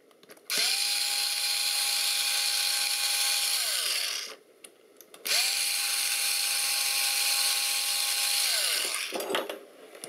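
Small electric screwdriver run twice, each run lasting about three and a half seconds with a short pause between. Each time the motor spins up to a steady whine and winds down, backing out tiny screws.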